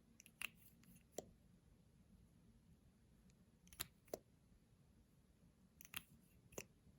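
Light, sharp clicks in three pairs, a few seconds apart, as small hard objects are handled in an otherwise quiet room.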